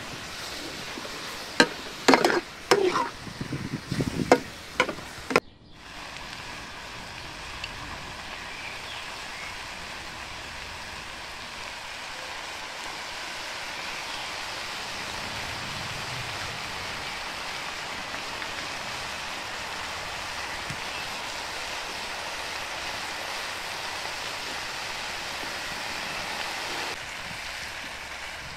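A metal ladle knocking and scraping against a steel pan as chopped vegetables are stirred, with a few sharp clinks in the first five seconds. After that comes a steady, even sizzle of the filling frying in the pan.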